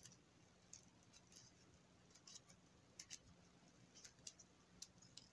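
Near silence with faint, irregular small clicks and rustles from hands twisting copper wire stems together.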